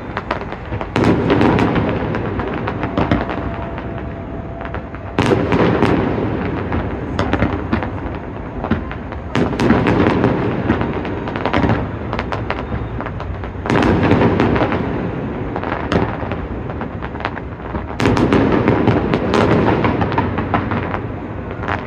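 Large fireworks display: a dense run of shell bursts and crackling, swelling to a louder volley about every four seconds.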